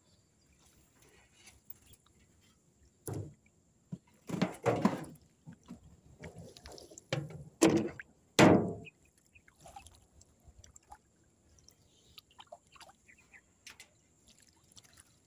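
Water splashing and sloshing in a handful of bursts, the loudest between about three and nine seconds in.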